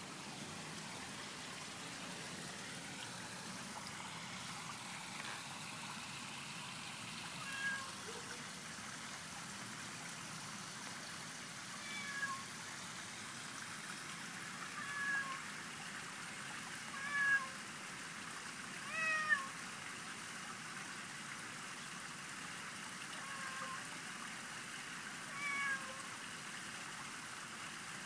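Tabby cat meowing: about seven short, separate meows spread out, several falling in pitch, the loudest a little past the middle, over a steady faint background hiss.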